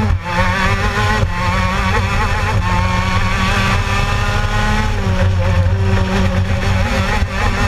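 Gilera-engined racing kart at full throttle, the engine's pitch climbing steadily down the straight. About five seconds in the revs drop as the driver lifts for a corner, then start rising again near the end.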